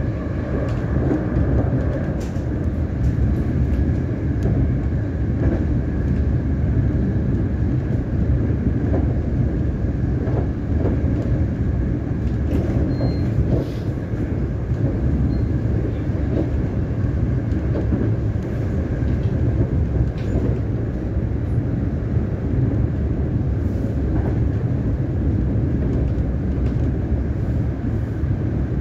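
Siemens Nexas electric train running steadily on the line, heard on board: a continuous rumble of wheels on track with a faint steady whine over it and occasional small clicks.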